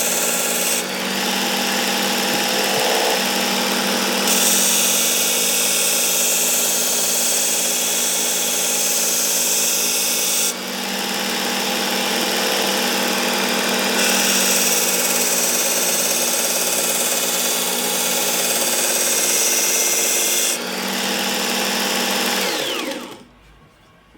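Work Sharp Ken Onion Edition Mk II sharpener's blade grinding attachment running, with a meat cleaver's steel edge ground on a coarse X65 (about 220 grit) belt. A steady motor whine under a hiss of metal on the belt, which shifts in tone every few seconds. Near the end the motor switches off and winds down in falling pitch.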